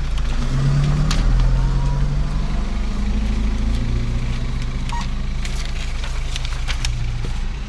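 A motor vehicle's engine running over a steady low rumble, its pitch shifting up and down, with a few light clicks.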